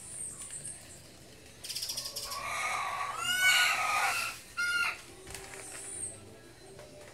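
A rooster crowing: one long crow that rises and falls, followed by a short extra note, with a brief rapid rattling sound just before it. Small birds chirp faintly.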